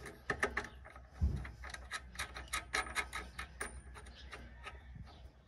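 Small metal clicks as a nut is threaded by hand onto the top stud of a rear shock absorber, quickening to several clicks a second, with one dull thump about a second in.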